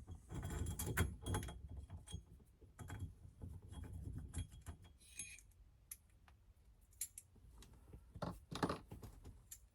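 Small metal parts being handled, giving scattered light clicks and jingling, busiest in the first second or so with a few sharper clicks near the end.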